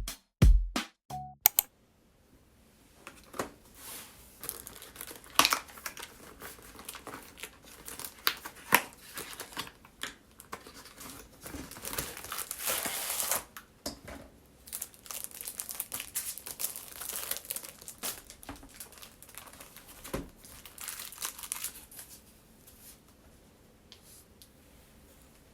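Packaging being crinkled and torn open by hand, with irregular crackling and scattered sharp rustles that come and go for about twenty seconds, heaviest in the middle, then fading out.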